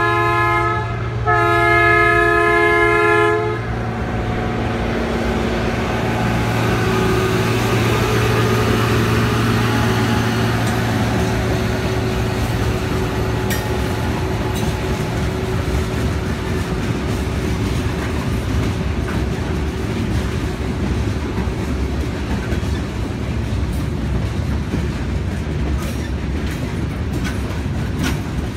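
Freight train of gravel-loaded hopper cars approaching and passing. A train horn sounds a chord twice in the first few seconds. Then an engine drones past, and the cars roll by with a steady rumble and wheel clicks.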